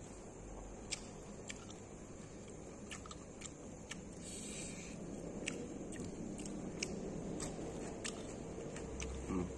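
A person chewing a mouthful of fried chicken, tempe and rice, with many small sharp crunchy clicks scattered through the chewing and a louder low thump near the end.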